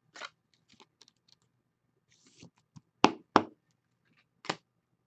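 Trading cards being handled: a rustle of card sliding against card near the start, then sharp clicks and taps as cards are moved and set down, the two loudest close together about three seconds in and one more near the end.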